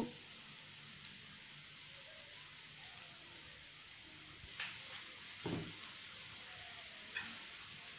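Ponnaganti (dwarf copperleaf) greens and tempering sizzling faintly in a nonstick frying pan, a steady soft hiss. A few light knocks come about halfway through and near the end.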